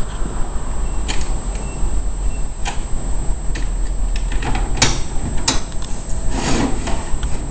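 Metal clicks and knocks from a large slotted metal sewing clamp being handled and its hinged top plate lifted open, with a longer metallic rattle near the end, over a steady low hum.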